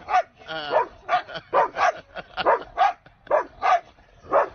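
Siberian husky giving a rapid string of about a dozen short, pitched yelps and yowls, some bending up and down in pitch.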